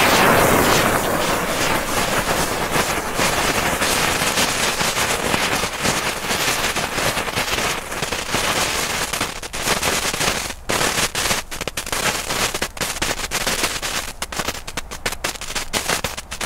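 Several small strobe fireworks burning on the ground at once, lit together: a dense, steady crackle that breaks up after about ten seconds into rapid, uneven sharp pops.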